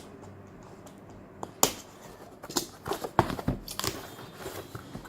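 Packaging being handled as a box's contents are taken out: irregular crinkling and rustling with sharp clicks and knocks, the sharpest about a second and a half in.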